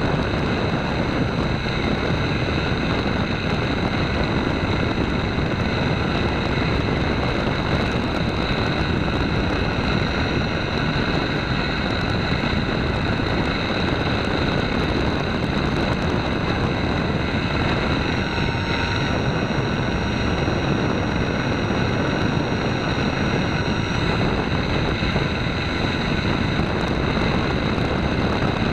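Radio-controlled model airplane's motor and propeller running steadily in flight, heard through a camera mounted on the plane, with a continuous rush of air and a steady whine.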